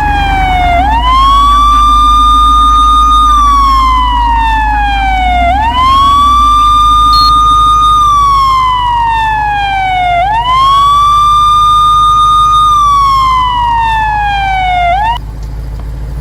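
Police-car siren sounding in long cycles: each rises quickly, holds a high note for a couple of seconds, then slides slowly down, three times over, above a steady low engine rumble. It cuts off about a second before the end.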